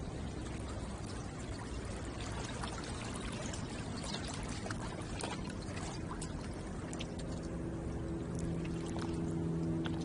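Water lapping and splashing at the shoreline, with small splashes crowding the middle few seconds. A low, steady motor hum runs underneath and grows louder near the end.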